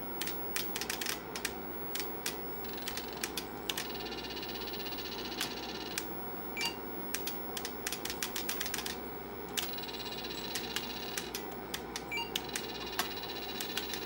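IBM Model F buckling-spring keyboard being typed on: irregular runs of sharp, clicky keystrokes over a steady background hum.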